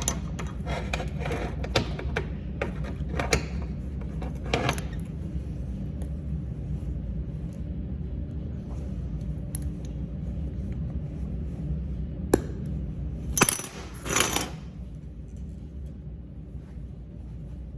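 Steady low hum of the MIG welding setup, with a run of sharp metallic clicks and clinks over the first few seconds and a few louder metal knocks about 12 to 14 seconds in.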